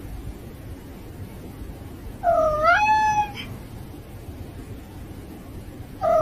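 A cat meowing: one drawn-out meow of about a second that rises in pitch and then holds, about two seconds in, with the next meow just starting at the very end.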